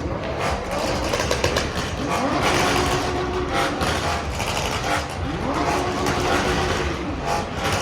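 Vehicle engines running and being revved, with the pitch rising twice. The revs rise about two seconds in and again about five seconds in, over a steady din of engine noise.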